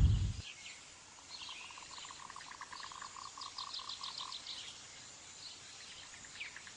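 Animal chirping: a trill of short chirps, about five a second, lasting about three seconds, with scattered higher chirps around it over a faint hiss. A loud burst of noise cuts off about half a second in.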